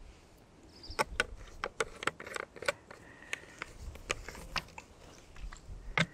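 Irregular sharp clicks and light knocks of camp gear being handled, as a plastic water canteen is moved and set down on dry ground; some clicks ring briefly.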